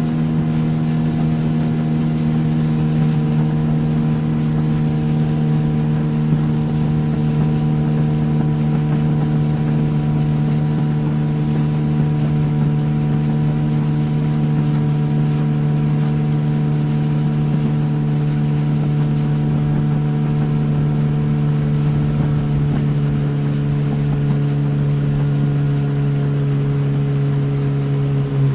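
Motorboat engine running at a steady cruising speed, one even hum, with the rush of wind and water around the hull. Right at the end the engine note drops a little.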